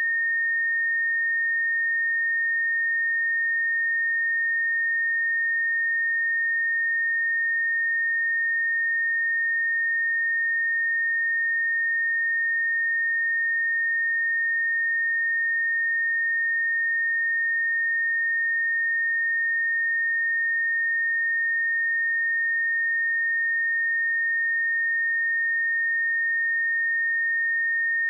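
Steady pure sine-wave test tone at 1837 Hz, a single unchanging high-pitched beep held at constant level.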